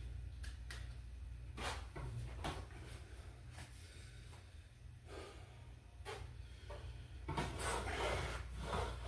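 A man breathing hard through ab crunches, with short puffs of breath and faint rubbing from the machine at each rep; the breaths grow louder near the end. A steady low hum runs underneath.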